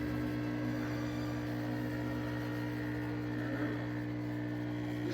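MAttinata Mattino Ultra 20-bar espresso machine's pump running with a steady buzzing hum.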